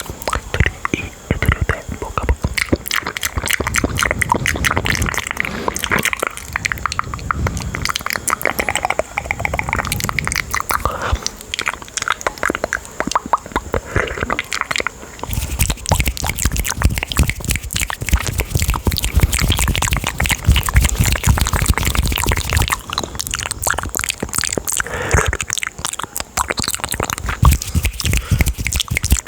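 Close-miked ASMR mouth and hand sounds: a dense, continuous run of wet mouth clicks and smacks mixed with hand noises on the microphone. About halfway through the sound turns heavier, with a low rumble under the clicking.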